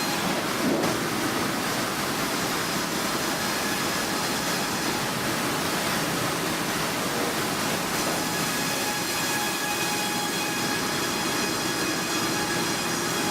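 Automatic bandsaw blade sharpening machine running steadily: a continuous grinding noise with faint high whining tones over it.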